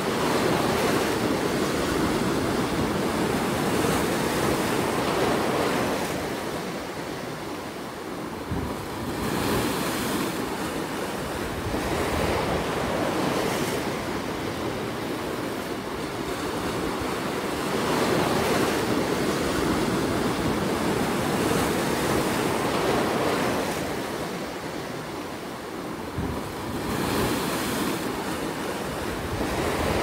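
Ocean waves breaking and washing over shoreline rocks, a steady rush of surf that swells and eases every few seconds.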